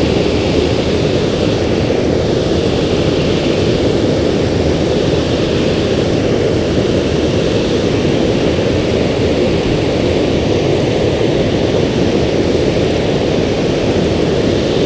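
Steady rushing of water pouring over a river spillway, an even noise heaviest in the low range.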